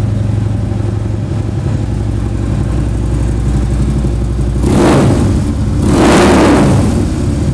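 A 2013 Harley-Davidson Road Glide Custom's 103 cubic-inch V-twin is idling through upgraded aftermarket mufflers. It is revved twice with quick throttle blips, about five and six seconds in, and the second rev is the longer of the two.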